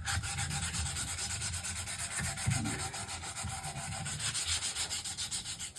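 Hand sanding of solid wood with sandpaper: a steady rasp in quick, even back-and-forth strokes.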